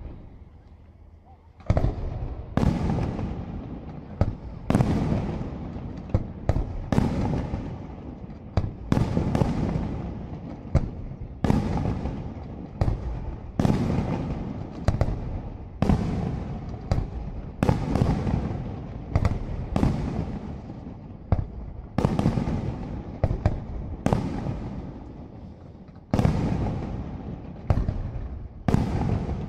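Aerial firework shells bursting in quick succession, starting about two seconds in: a sharp bang about once a second, each dying away over a second or so.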